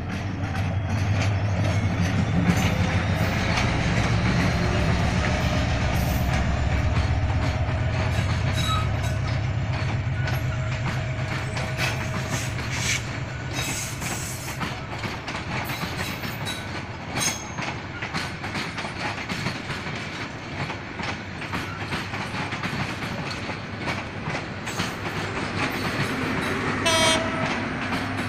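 Diesel-hauled express train passing close by at speed. The locomotive's low engine rumble comes first, then the steady clatter of the coaches' wheels over the rail joints, with a brief high tone near the end.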